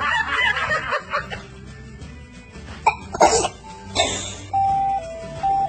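A baby's short sneeze about three seconds in, with a second breathy burst a second later, over light background music with a simple stepping melody.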